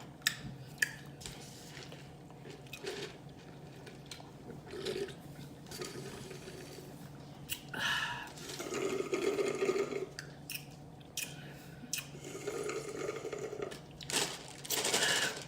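Close-miked wet mouth sounds of eating: chewing, lip smacking and clicks, with a few longer slurping sips of a drink, the loudest near the end.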